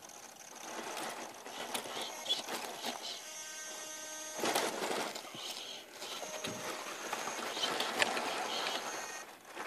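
1/10-scale RC rock crawler's electric motor and geared drivetrain whining at low speed, rising and falling as it works, with the tyres crunching and scrabbling over loose sandy dirt and gravel.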